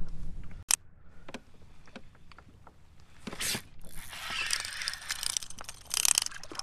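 Spinning fishing reel being cranked as a hooked flounder is brought in, ticking and rattling. There is a sharp click just under a second in and scattered ticks after it, and from about four seconds the rattling of the reel turns steady.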